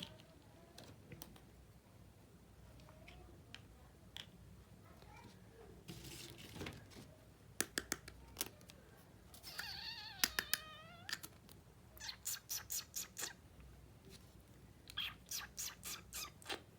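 Light clicks and taps of small toy kitchen pieces being handled, including two runs of quick, even taps near the end. About ten seconds in, a wavering, squeak-like pitched sound lasts a second or so.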